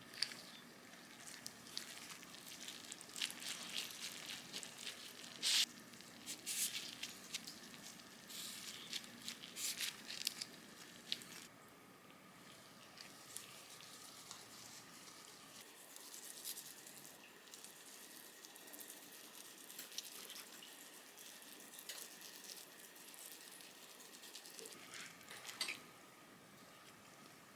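Quiet kitchen handling noises: scattered light clicks, taps and rustles, busiest in the first half and sparse afterwards.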